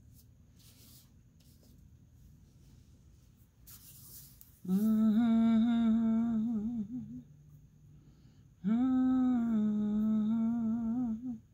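A woman humming two long, low, held notes, each about two and a half seconds long, with a short pause between them. Before the humming there is a faint rustle of paper pieces being handled.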